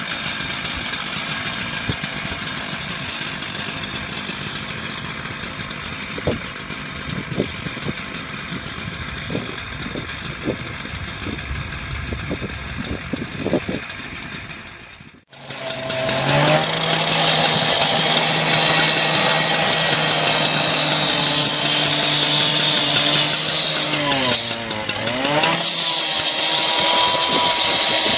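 Steady outdoor noise with a few light knocks, then, after a cut about halfway through, a gas-powered cut-off saw running at high speed, grinding through a steel guy-wire anchor plate. Its engine note sags briefly under the load near the end, then picks up again.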